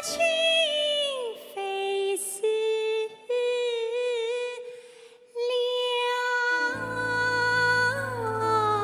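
A female vocalist singing in Chinese opera-style (xiqiang) voice, holding long notes with vibrato and short pitch slides over sparse accompaniment. About seven seconds in, a low steady bass tone enters beneath her.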